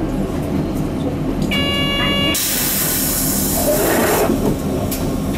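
Mitsubishi Fuso Aero Midi MK bus's 6M61 diesel idling while the bus stands still, with a short electronic chime about one and a half seconds in. A loud hiss of released compressed air follows and lasts about two seconds.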